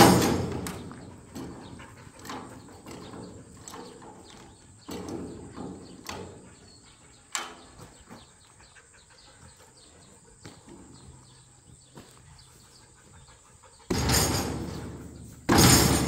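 Heavy metal thuds and clanks as a steel sheep feeder is jolted with a high-lift farm jack and a pry bar: a loud thud at the start, a few lighter knocks over the next several seconds, then two loud jolts near the end, each dying away over a second or so.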